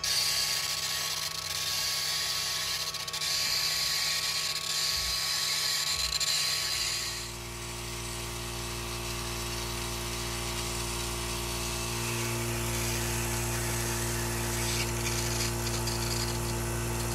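Benchtop wire EDM running a cut through aluminium: a steady high hiss of sparking over the constant hum of the machine. About seven seconds in the hiss drops back and a lower steady hum with several tones carries on.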